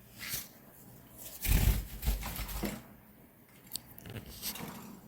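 Parrots preening: a few short bursts of feather rustling and beak nibbling, the loudest about one and a half seconds in, with a couple of sharp clicks near the end.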